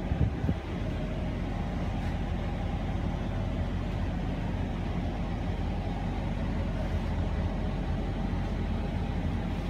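Steady low machine hum, a drone with evenly spaced low tones that holds unchanged throughout, from machinery running aboard the mobile clinic vehicle. A few brief knocks sound within the first second.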